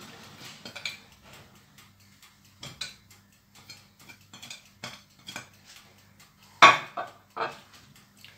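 Kitchen handling clatter: light, scattered clicks and knocks of utensils and containers on a counter, with one sharper knock about six and a half seconds in and a smaller one just after, over a faint steady hum.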